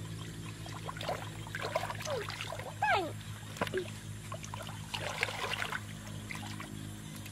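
Hands splashing and sloshing through shallow muddy water, groping in the mud for fish, in irregular small splashes, over a steady low hum.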